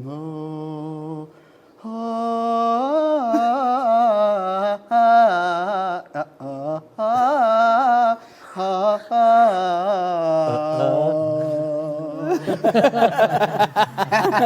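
A man singing wordlessly a cappella, holding long notes and sliding between them in a chant-like improvised melody with a few short breaks. About twelve seconds in, the singing breaks off into laughter.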